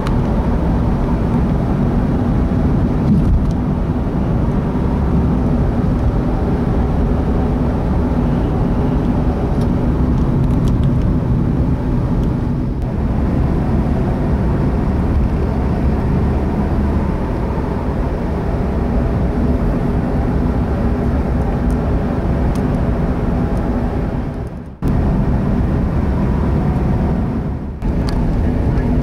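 Steady low rumble of engine and tyre noise heard from inside a moving car's cabin, cutting out briefly twice near the end.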